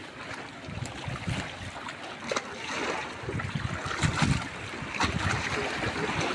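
Sea water lapping and sloshing against shoreline rocks in irregular surges, with some wind on the microphone.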